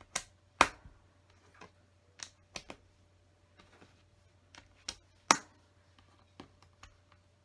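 LEGO pieces being pressed onto a LEGO board: a dozen or so irregular sharp plastic clicks, two louder ones about half a second in and about five seconds in.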